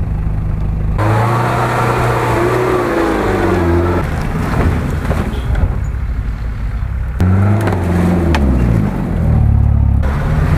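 Off-road SUV and pickup engines revving under load in mud and water, heard as a string of short clips that change abruptly every few seconds, the pitch rising and falling as the throttle is worked.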